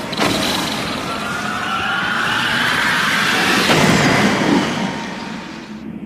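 Film trailer sound effects: a sudden burst, then a dense rushing noise with a rising whine that swells to a peak about four seconds in and dies away.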